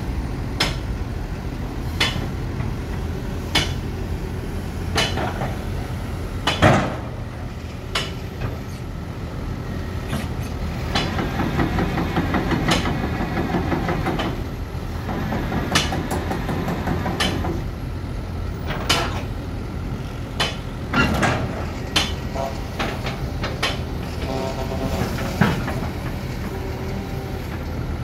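Kobelco SK200-8 hydraulic excavator running, its diesel engine a steady drone while the boom and bucket are worked. Sharp clanks come every second or two. For several seconds near the middle a denser, slightly louder rattle rises as the machine works harder.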